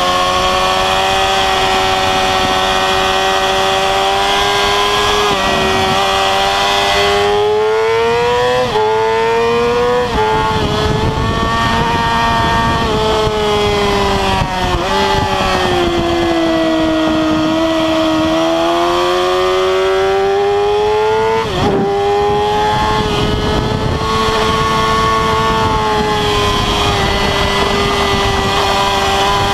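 Inline-four sportbike engine at high revs on track, heard from onboard over heavy wind rush. Its pitch climbs and falls as the rider works the throttle through corners, with a quick sharp dip and recovery about two-thirds of the way through.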